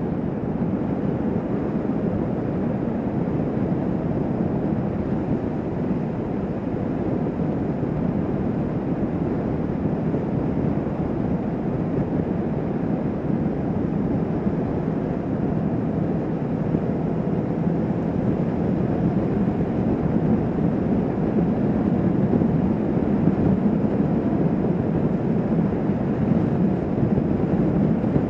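A Kawasaki Vulcan S 650's parallel-twin engine running at a steady highway cruise under a constant rush of wind on the microphone.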